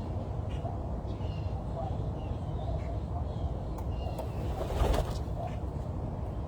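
Birds chirping with short, scattered calls over a steady low outdoor rumble, and a brief louder rustle about five seconds in.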